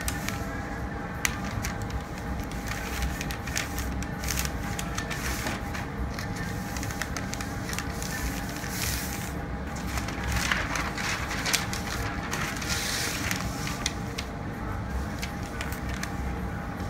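Large sheets of pattern paper rustling and crinkling as they are unfolded, spread out and smoothed flat by hand, with many short irregular crackles.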